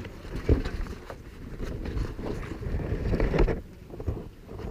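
Wind rumbling and buffeting on the microphone, uneven and strongest around three seconds in, with a sharp knock about half a second in.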